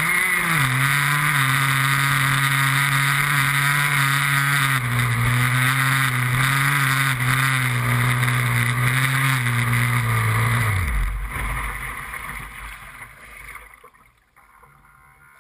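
Small two-stroke gas outboard of an RC F1 tunnel boat, heard from a camera on its deck, running at a steady low pitch. About eleven seconds in the engine note stops and the sound fades away as the boat coasts.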